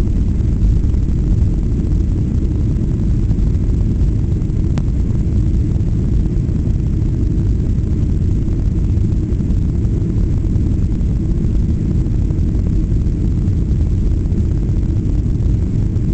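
Boeing 737-800 climbing out after takeoff, heard inside the passenger cabin: a steady, loud low rumble of its CFM56 engines and airflow.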